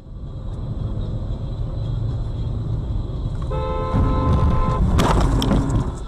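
Road and engine rumble inside a car's cabin, then a car horn blaring for about a second, followed a moment later by the loud crunch and clatter of a collision with the car alongside.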